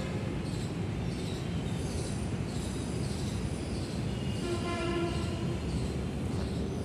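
Steady low rumble of city traffic, with a short pitched whine about four and a half seconds in that lasts just over a second.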